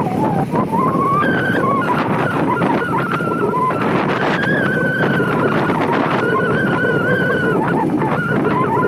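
Motorcycle running along a road with steady engine and wind noise, under a clear high tone that holds and shifts up and down in pitch several times.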